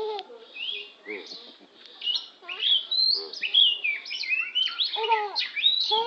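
Oriental magpie-robin (kacer) singing: a varied run of quick whistled slurs and chirps, sparse at first and near-continuous from about two and a half seconds in.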